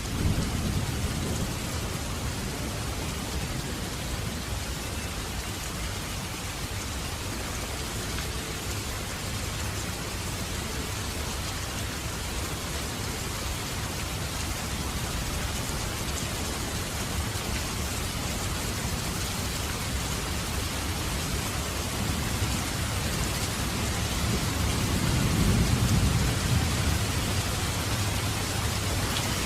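Heavy rain falling steadily, a dense, even hiss of raindrops on surfaces. A deep low rumble swells briefly at the start and again, longer and a little louder, near the end.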